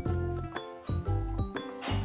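Background instrumental music with a steady beat of about two low hits a second.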